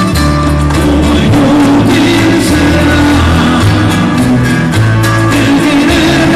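Live bolero music: a guitar trio with a backing band of strings, double bass and keyboard, played loud over a PA with a steadily moving bass line.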